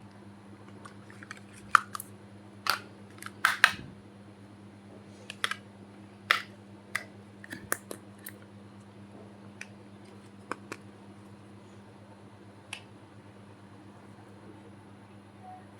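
Small plastic toy kitchen pieces clicking and tapping as they are handled and set down, a dozen or so sharp irregular clicks over a faint steady hum.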